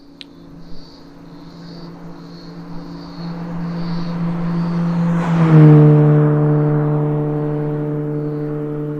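Mitsubishi Lancer Evolution IX's turbocharged four-cylinder, fitted with an Invidia O2 housing and front pipe, 100-cell test pipe and 3-inch titanium cat-back exhaust, driving past at about 4,500–5,000 rpm. The steady engine note grows louder, peaks as the car passes about five and a half seconds in, drops slightly in pitch and then fades away.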